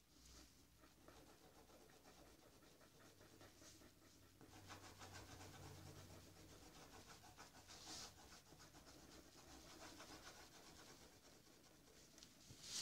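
Faint scratching of a felt-tip marker colouring on paper, in quick repeated strokes.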